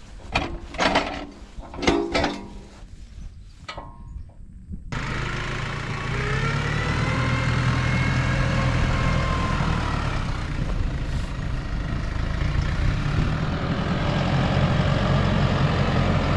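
Several sharp metal clanks and knocks as the bale trailer's tongue is hitched to the tractor. About five seconds in, a New Holland tractor's diesel engine starts sounding steadily and loudly, with a wavering whine over it, as its front loader carries round bales to the trailer.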